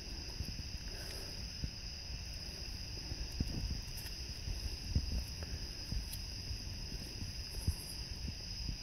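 Occasional light clicks and knocks from locking pliers and a steering box being handled as its input shaft is turned by hand, over a steady chorus of crickets.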